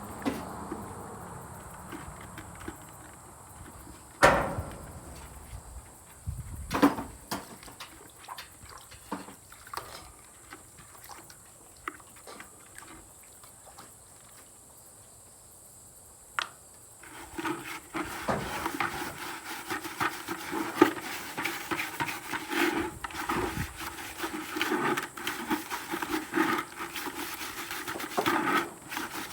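Hard knocks and clatter from plastic buckets and a waterer cup being handled, two sharp knocks standing out early on. From about halfway a continuous rubbing and scraping with many small ticks, like a bucket being scrubbed.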